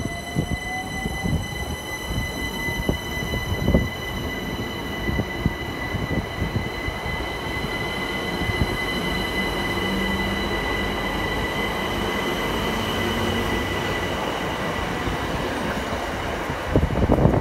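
Southern Class 377 Electrostar electric train pulling out and gathering speed. A steady high whine runs over a motor tone that rises in pitch through the first few seconds, above the rumble and knocking of the wheels on the rails. The rumble grows louder near the end as the rear cab passes close by.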